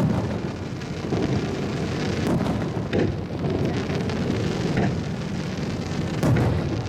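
Fireworks bursting in a continuous stream of rumbling booms and crackle, with a few sharper bangs standing out.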